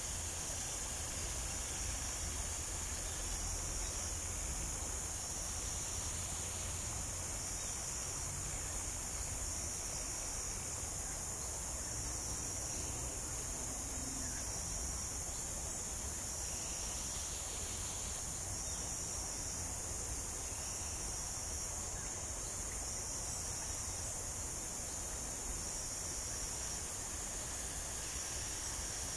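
Tropical rainforest insect chorus: a steady high-pitched buzz of many insects, with one short high chirp repeating about every two seconds, over a low rumble.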